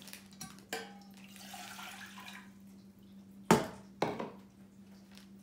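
Water poured from a cup into a stainless-steel saucepan for about a second, after a few light clinks. About three and a half seconds in comes a sharp knock, the loudest sound, then a lighter one.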